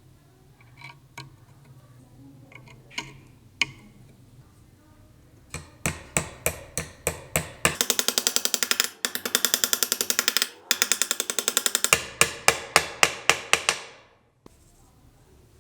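A run of sharp knocks. They start spaced out, speed up to a fast rattle of about ten a second, then slow again and stop abruptly.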